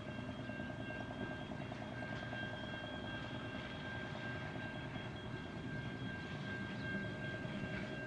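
Brill Model 75 railcars running under power as they pull away upgrade: a steady engine drone with a fine regular pulse, with a steady high whine over it.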